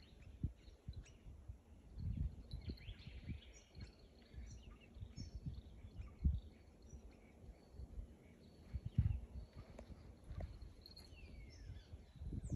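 Small birds chirping now and then, one giving a falling call near the end, over irregular low thumps and rumble on the microphone.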